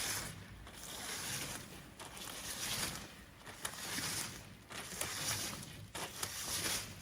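Sanding-belt slitting machine running: an even hiss that swells and fades every second or two.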